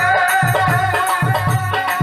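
Live Bengali baul folk music: a man singing over a violin, with a barrel drum keeping a steady beat of about four strokes a second and a rattling percussion.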